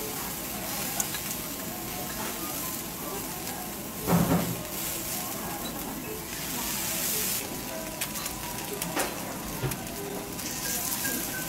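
Matsusaka sirloin steak sizzling steadily on a hot flat iron teppan griddle as it is cut into pieces, with a short louder knock about four seconds in.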